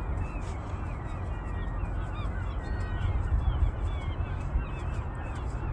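A flock of birds calling: many short chirping calls overlapping throughout, over a steady low rumble.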